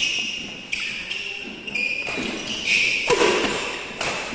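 Badminton doubles rally: rackets striking the shuttlecock in sharp hits about once a second, with players' shoes squeaking on the court floor between shots.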